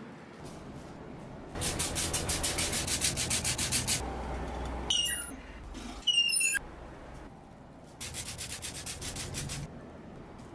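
Small mesh strainer being shaken and tapped to sift dry enamel powder, a fast rhythmic rasping of about ten strokes a second, in two spells. Between the spells come a few short high squeaks.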